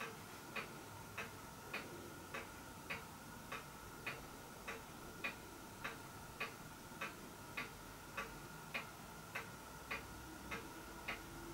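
Faint, even, clock-like ticking, a little under two ticks a second, over a faint steady hum.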